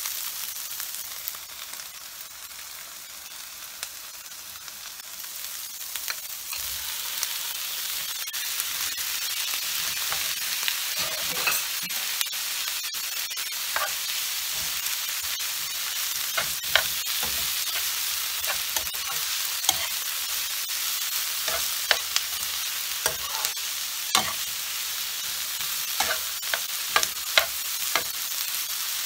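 Chicken, onion and prawns sizzling in a non-stick frying pan, stirred with a spatula that scrapes and clicks against the pan. The sizzle grows louder about six seconds in.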